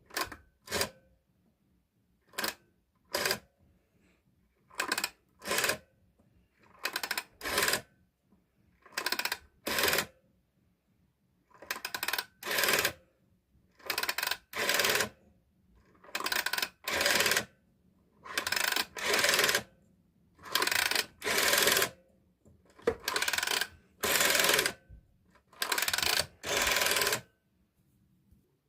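A rotary telephone dial being turned and let go again and again: each turn is a pair of mechanical whirs, the wind-up and the spring-driven return, about every two seconds, and the turns grow longer through the run, as for higher digits.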